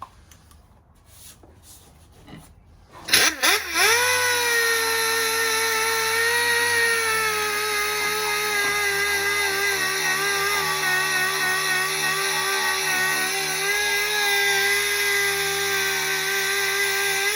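Power sander starting about three seconds in, its motor spinning up with a rising whine, then running steadily while sanding down the car's body panel.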